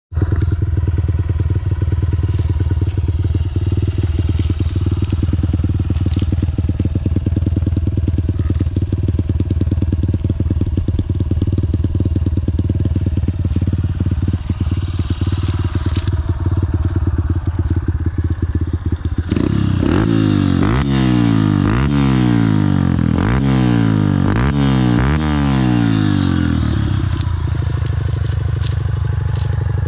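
2009 Honda CRF150F's single-cylinder four-stroke engine idling steadily, then revved about five times in quick succession around two-thirds of the way in before settling back to idle. Light crunching of dry corn stalks underfoot.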